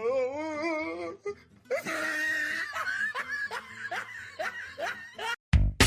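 A person laughing hard in repeated breathy bursts, after a wavering drawn-out vocal sound in the first second. Music cuts in near the end.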